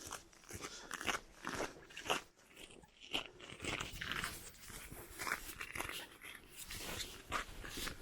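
Footsteps crunching on the ground, an uneven run of crunchy steps.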